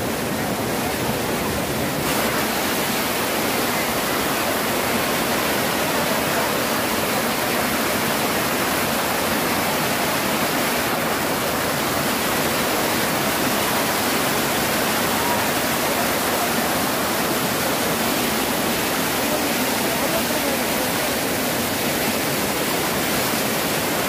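Overflow from a full lake rushing steadily over a stone spillway and down rock slabs: a constant, even rush of white water.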